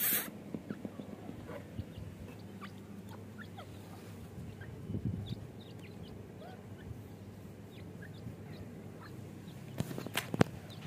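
Francolin chicks peeping, many short high cheeps scattered throughout. A couple of sharp knocks sound near the end.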